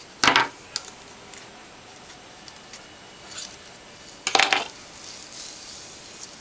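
Hair rollers, pulled out of the hair, being dropped onto a hard surface: two short clatters about four seconds apart, with a few light clicks in between.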